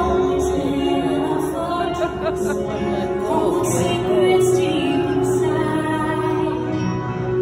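Film-soundtrack song played over the exhibit's sound system: a woman singing with orchestral backing over a steady held note, a low bass note entering about halfway through.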